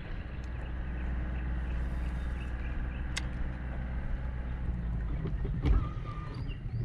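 Steady low hum of a bass boat's bow-mounted electric trolling motor, with a few sharp clicks and a louder knock near the end.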